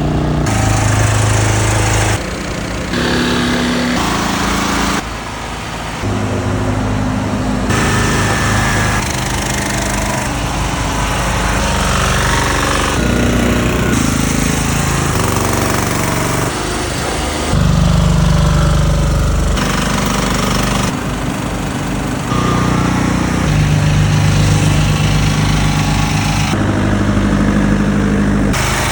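Small engine-driven power generators running during a power outage, a series of short takes cut together: each a steady engine hum, with the pitch and mix changing abruptly every second or few.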